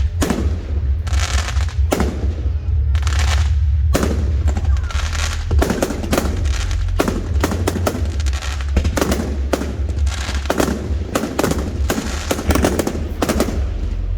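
Fireworks going off in a display: a run of sharp bangs with fading crackling tails, a second or so apart at first, then coming thick and fast from about four seconds in.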